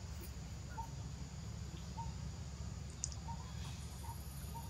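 Short faint animal chirps repeating about once a second over a steady low rumble, with one brief high click about three seconds in.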